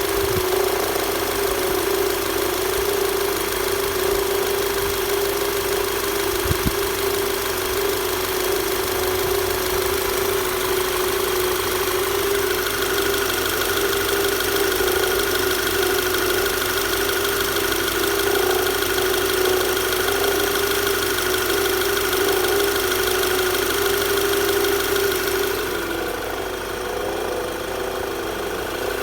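Volkswagen Tiguan engine running steadily with a knocking noise, the fault the owner is recording. A faint steady whine joins about halfway through.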